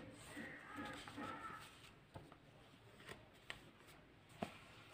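Near silence: quiet room tone with a few faint short clicks, the loudest about four and a half seconds in.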